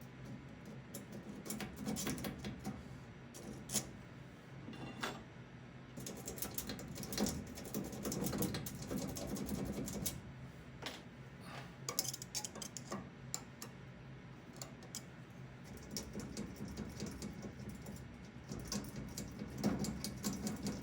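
Improvised metal picks raking and scraping in the keyway of a vintage Steelcase desk drawer lock: an irregular run of small metallic clicks and scrapes as the pins are worked. The pins give no result and the lock stays shut.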